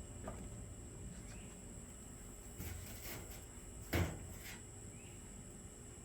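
A single sharp knock about four seconds in, among soft handling rustles and small clicks, over a faint steady high-pitched whine.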